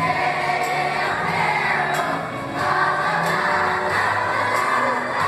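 Large school choir singing held chords over instrumental accompaniment, with a light steady beat.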